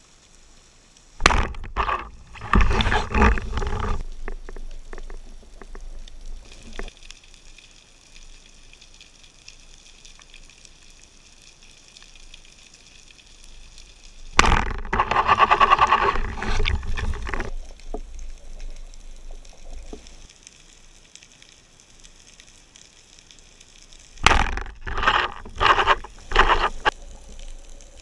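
Underwater bubbling and rushing water in three loud bursts, about a second in, around the middle and near the end, with a faint steady hiss between them.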